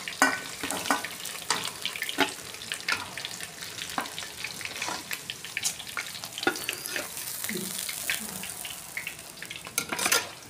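Masala-coated fish frying in hot oil in a steel kadhai: a steady sizzle with frequent sharp crackling pops of spitting oil.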